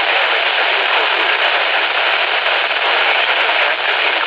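Steady static hiss from a weather radio receiver, heard through its speaker with no voice on the channel.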